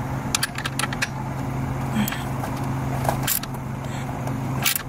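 Scattered short metallic clicks and clinks of hand tools and washers as the battery cage's bolts are worked on, the loudest about two, three and near the end of the stretch, over a steady low hum.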